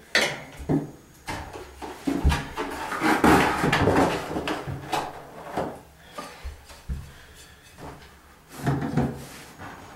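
Washer pan being handled and lowered onto the subfloor over the drain pipe: irregular scraping and rubbing with a few knocks, quieter near the end as it is pressed into place at the drain.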